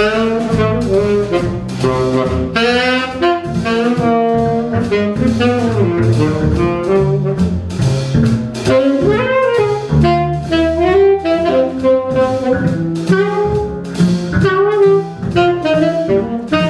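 Live jazz combo: a saxophone plays quick, moving melodic lines over double bass, piano and a drum kit with cymbals.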